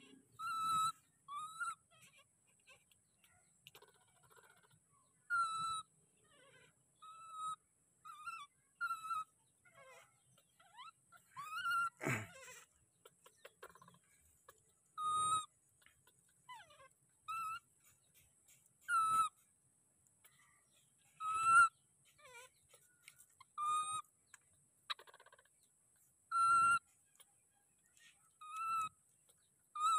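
Baby macaque giving short, high-pitched cries over and over, one about every two to three seconds.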